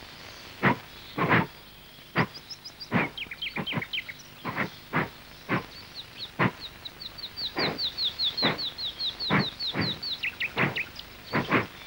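Short sharp thumps, well over a dozen at irregular spacing, with a small bird chirping high above them: a few scattered notes early, then a rapid even run of short notes from about halfway in.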